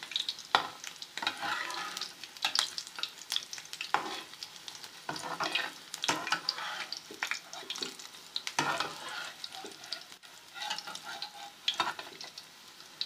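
Pieces of besan (gram-flour) batter shallow-frying in hot ghee in a pan, sizzling steadily. Irregular clinks and scrapes of a utensil against the pan as the pieces are turned over.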